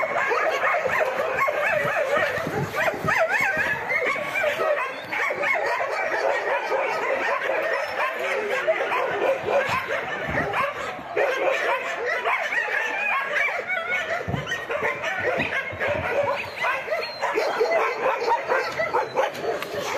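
Many dogs barking and yelping at once, an unbroken chorus.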